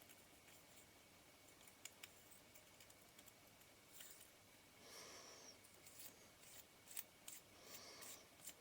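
Near silence, broken by a few faint small clicks and a brief soft rustle, as the lens parts are handled.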